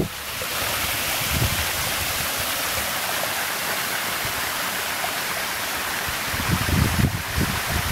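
Waterfall in full flow, a steady rush of water pouring over rock. Low rumbling on the microphone comes and goes near the end.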